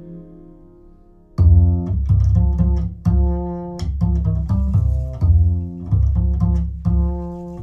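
Recorded music played back over Monitor Audio Silver 500 (6G) floor-standing loudspeakers, in a passage without vocals. A held chord fades away, and about a second and a half in a deep bass line comes in with strong repeated notes and sharp attacks, with higher notes above it.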